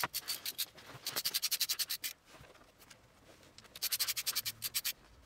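Ratchet wrench clicking in two quick runs of rapid, evenly spaced clicks, the second about three seconds after the first, as the shifter's mounting bolts are turned.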